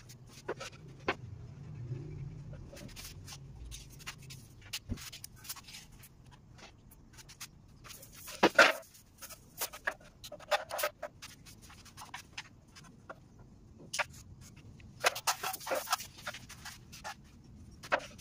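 Scattered knocks, taps and scrapes of wooden boards and hand tools being handled on a tiled floor during woodworking, with one loud knock about eight and a half seconds in and short bursts of clatter around ten and sixteen seconds.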